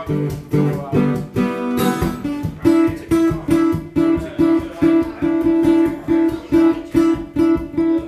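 Washburn acoustic guitar strummed in a steady rhythm, about two strokes a second, with a higher note ringing through each chord from about a third of the way in.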